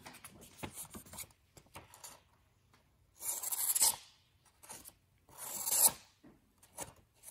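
Buck 381 Trapper pocketknife's small clip-point blade slicing through a sheet of paper: dry, rasping cutting strokes. Two longer slices come about three and five and a half seconds in, with short scratches before and between. The blade cuts cleanly, a sign of a sharp edge.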